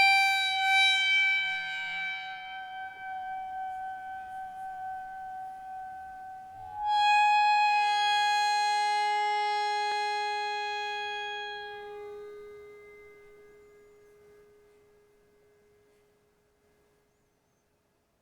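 Contact-microphone recording played back time-stretched (slowed down): sustained ringing tones with many overtones, slowly fading. A new ringing note starts about seven seconds in and decays away to silence near the end.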